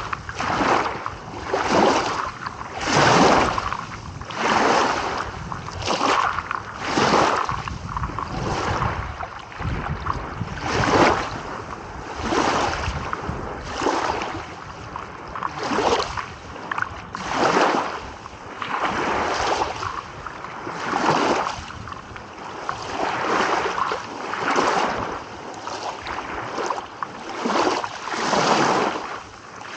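Small sea waves lapping, each wash of water swelling and falling away about every one and a half seconds.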